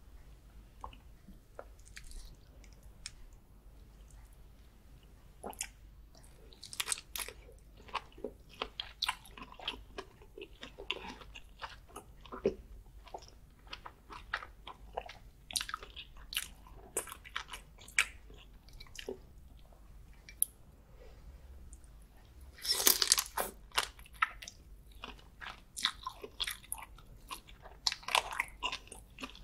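Close-miked mouth sounds of biting and chewing garlic butter prawns: irregular wet clicks and smacks, with a louder, denser bout about three-quarters of the way through.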